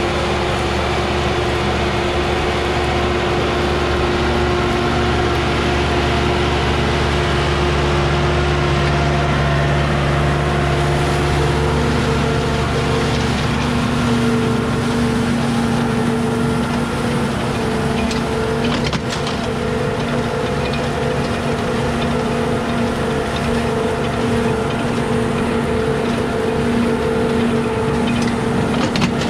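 Başak 2075 Plus tractor's diesel engine running steadily under load while it drives an Elibol square baler picking up and baling straw. The mix of tones changes about halfway through as the baler's own running sound comes forward.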